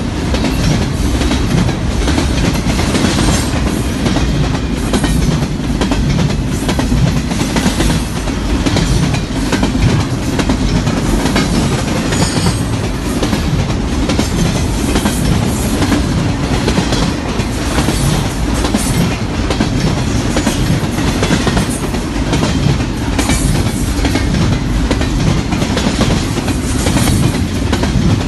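Double-stack intermodal freight train's container well cars rolling past: a steady heavy rumble with the wheels clicking rhythmically over the rail joints.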